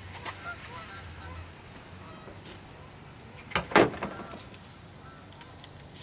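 Two short, sharp knocks in quick succession about three and a half seconds in, with a few faint clicks earlier, over a steady low background.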